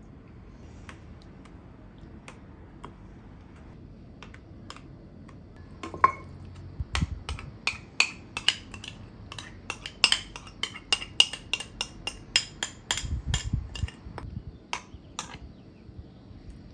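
Kitchen utensils clicking and clinking against dishes: a few scattered light taps, then about halfway through a quick run of sharp clicks, some with a short ring, along with a few dull thumps.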